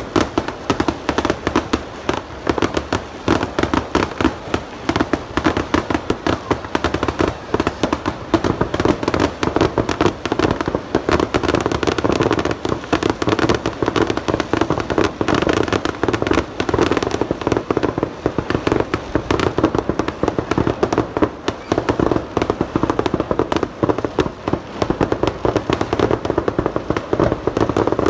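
Fireworks going off in a rapid, unbroken barrage: dense cracks and bangs, many a second, that never let up.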